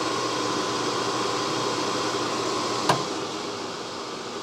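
American Rotary ADX rotary phase converter's idler motor running, a relatively quiet, steady hum with fan whir. A single click about three seconds in, after which the hum slowly grows fainter.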